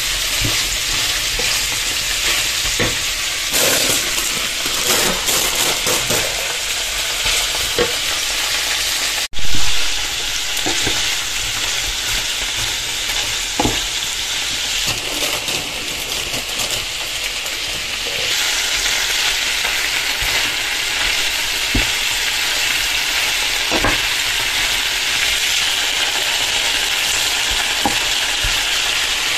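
Chickpeas, chicken, onion and tomato sizzling in a frying pan as a wooden spoon stirs them, with scattered light knocks of the spoon on the pan; spinach leaves are stirred in partway through. A sudden brief loud burst about a third of the way in, and the sizzle gets a little louder after the halfway mark.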